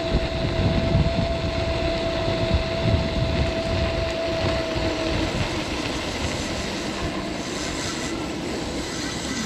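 Electric scooter riding along: a steady thin whine from its electric motor over a rumbling wash of wind and road noise, the whine fading out about five seconds in.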